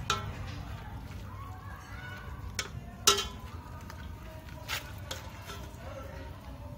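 Metal ladle and slotted turner clinking against the side of a stainless steel pot as a cooked fish is lifted out: a handful of sharp clinks, the loudest about three seconds in, over a steady low rumble.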